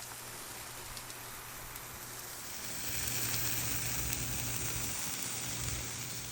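Food sizzling on a Blackstone flat-top griddle, a steady hiss that grows louder about two and a half seconds in and eases off near the end.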